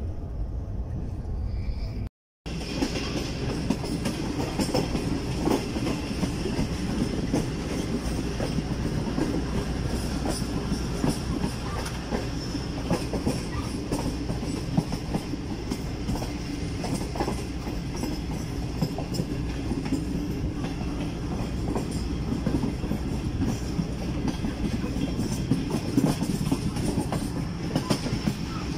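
Passenger train running along the track, heard from a coach: a steady rumble with the wheels clacking irregularly over rail joints. It starts after a brief dropout about two seconds in.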